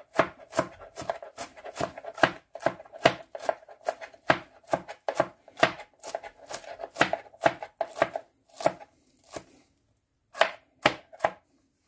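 Large kitchen knife finely chopping shredded Savoy cabbage on a plastic cutting board: a steady run of sharp knocks, about two to three a second, with a short pause near the end before a few more strokes.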